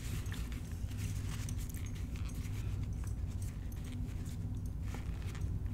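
Quiet room tone with a steady low hum, under faint soft rustles and clicks from a paper napkin wiping the mouth.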